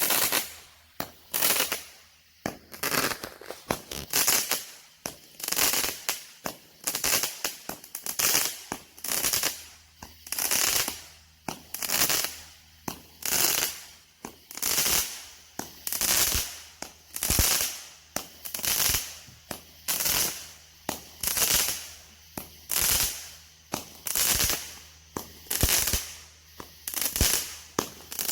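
49-shot consumer firework cake firing in steady sequence: a sharp report roughly every second and a bit, each followed by a short hissing, crackling tail.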